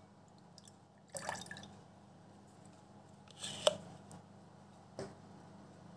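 Soapy water dripping and splashing from a lifted makeup sponge and its plastic holder back into the cleanser bowl: three separate drips, about a second in, a little after three and a half seconds, and at five seconds.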